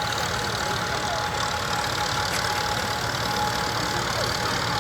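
Steam traction engine running steadily at a ploughing demonstration: a continuous low rumble with a steady hiss, holding an even level throughout.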